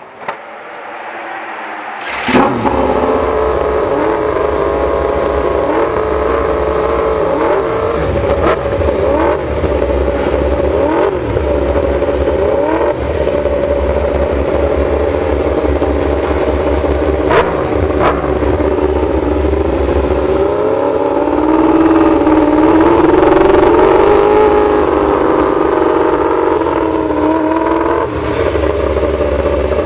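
Suzuki GSX-RR MotoGP bike's inline-four engine firing up about two seconds in, then running with a few sharp throttle blips. The revs are held higher for a few seconds past the middle.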